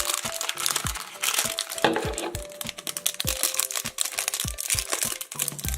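Crinkly plastic packaging being crumpled and torn open by hand, as a toy's wrapped surprise is unwrapped, with irregular crackling throughout. Background music with a steady beat plays underneath.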